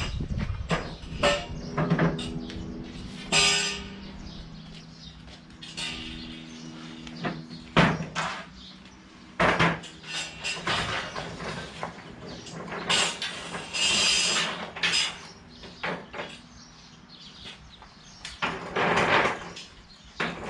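Irregular clanks and knocks of hard objects and metal being handled, with a short steady hum about two seconds in.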